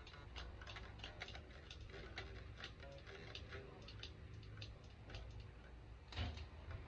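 Unamplified electric guitar being picked: quiet, thin string notes with a click at each pick stroke, a run of strokes several a second, one stroke louder near the end.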